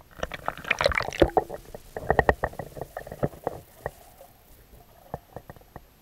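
Swimming-pool water splashing and lapping against a waterproof action camera held at the surface, a dense run of splashes and clicks. After about four seconds, with the camera underwater, it turns quieter, with a few scattered clicks.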